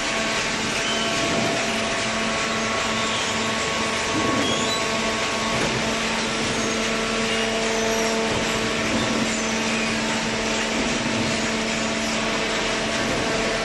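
Hydraulic paper baler running: a steady machine hum with several held tones over a dense hiss.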